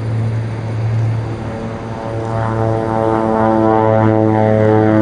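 De Havilland Canada DHC-6 Twin Otter twin-turboprop airliner taking off and climbing away, its propellers giving a steady low drone. A stack of higher engine and propeller tones builds in from about two seconds in and grows louder.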